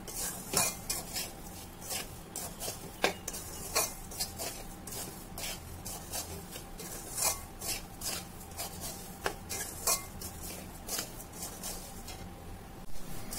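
Metal spatula scraping and knocking against a metal kadhai as semolina and vegetables are stirred and roasted in it, in irregular strokes about once or twice a second.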